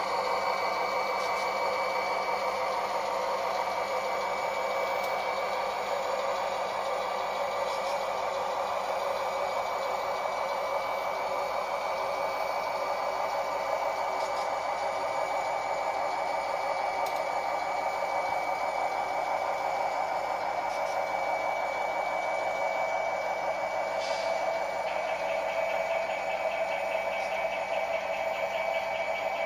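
Model train freight cars rolling along the layout track, a steady whir and rumble of small wheels on rail, with a single click near the end.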